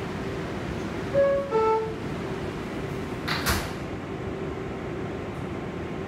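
New York City subway car's two-note falling door chime about a second in, then the sliding doors closing with a short burst of noise about three seconds in, over the car's steady hum.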